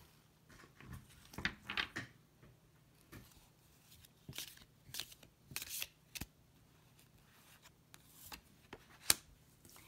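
A tarot deck handled in the hand: cards rustling and sliding against each other in short, scattered swishes, with a sharp click about nine seconds in.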